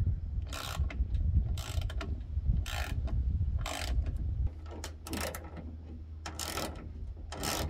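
Ratchet wrench with an extension tightening a pickup taillight's mounting bolt, its pawl clicking in short runs about once a second as the handle swings back. A low rumble sits under the first half and stops about four and a half seconds in.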